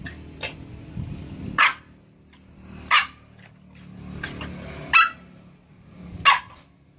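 An angry dog barking four sharp times, roughly one to two seconds apart, with a low growl between the barks.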